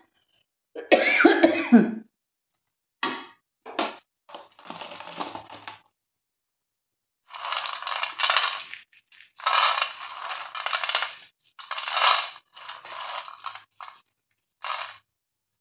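Roasted peanuts rubbed between the palms over a steel plate to loosen their skins: repeated short bursts of rattling and rustling, the nuts rolling and clicking against the metal. About a second in, a louder metal spoon scrape with a squeal, stirring dried red chillies in a pan.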